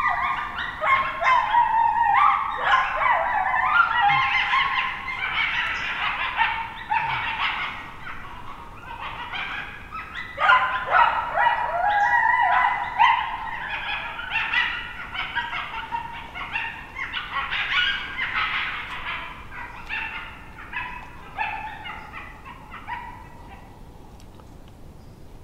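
Group of coyotes howling and yipping, many voices overlapping in rising and falling wails and sharp yips, thinning out and dying away near the end.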